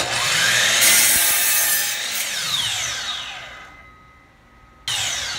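DeWalt sliding compound miter saw starting and cutting through a 4x4 wood post on a bevel, then the blade winding down with a falling whine. The saw sounds again in a short, sudden burst near the end.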